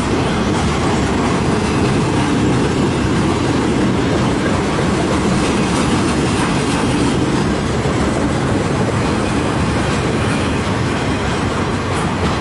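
A CN freight train's cars rolling past close by, a steady, loud noise of wheels on rail.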